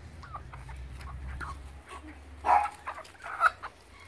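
Chickens clucking, a few short calls, with two louder ones about two and a half and three and a half seconds in.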